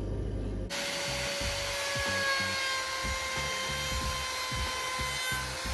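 Handheld Einhell plunge router running at speed with a steady whine and hiss as it trims a pine blank along a template; it comes in under a second in. Background music with a bass line plays underneath.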